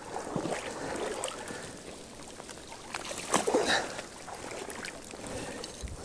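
Sloshing and splashing of shallow river water as a person wades and drags a mesh keepnet through it, loudest about three and a half seconds in.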